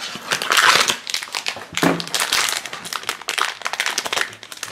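Shiny foil blind bag crinkling and rustling as hands pull it from a small cardboard box and tug at it to tear it open, in irregular crackly spells.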